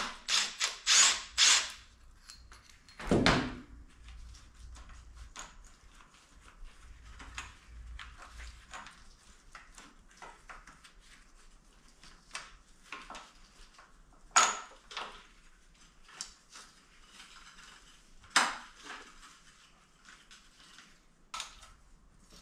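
Tools being worked on a dirt bike during disassembly: a quick run of clicks and clacks at the start, a louder knock about three seconds in, then scattered light ticks with two sharper clacks later on.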